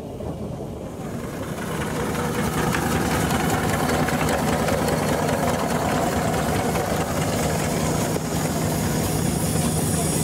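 An engine running steadily with a low hum and mechanical clatter, growing louder over the first two seconds and then holding.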